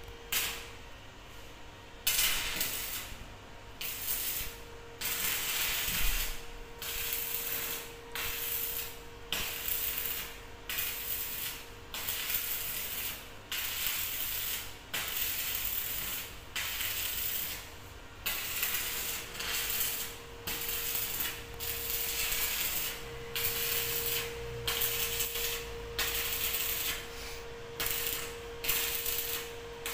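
Electric arc welding on a steel lift-cage frame: the arc crackles and sputters in many short welds, about one every second and a half, starting about two seconds in.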